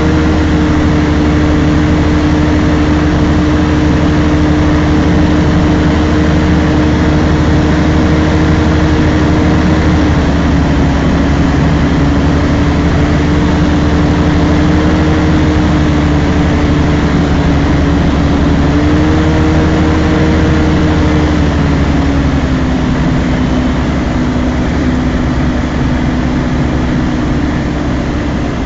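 Light aircraft's propeller engine droning in the cockpit over a rush of airflow. Its pitch steps down about a third of the way in, rises briefly past the middle and drops again, and the sound grows a little quieter near the end: the throttle being worked on final approach to landing.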